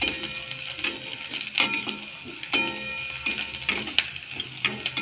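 Flat steel spatula scraping and clinking against a steel kadhai as chopped onion, curry leaves, green chillies and garlic are stirred in hot oil, over a light sizzle. The clinks come irregularly, roughly one a second.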